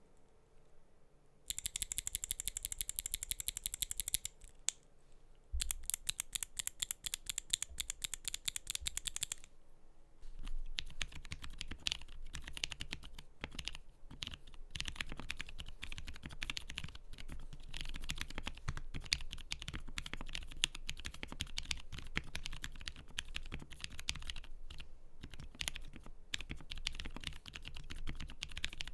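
Typing on a Portico mechanical keyboard fitted with lubed Zealios 62g tactile switches and GMK Iris replica keycaps. It starts with two fast, even runs of keystrokes a few seconds each, with a short pause between, then settles into steady continuous typing.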